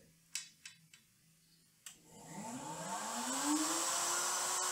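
A few light knocks, then a table-mounted router motor switches on about two seconds in: its whine rises as it spins up and then runs steadily at full speed, ready for a dado cut.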